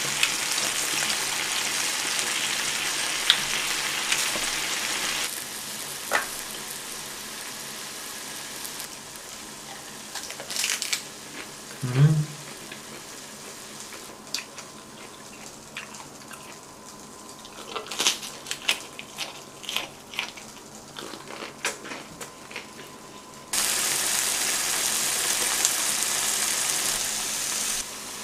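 Marinated pork ribs sizzling on a hot griddle plate. The sizzle is loud for the first five seconds, drops away sharply, and comes back loud for the last five seconds. In the quieter middle there are scattered clicks and smacks of utensils and eating.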